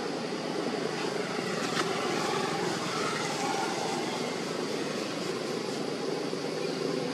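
A steady engine drone that keeps on without change, like a motor running at a distance.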